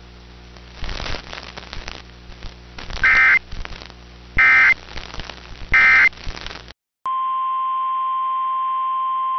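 Emergency Alert System signalling: three short bursts of screeching EAS digital data tones, about a second and a half apart, form the end-of-message code. After a brief silence a single steady alert tone starts, the NOAA Weather Radio 1050 Hz warning alarm.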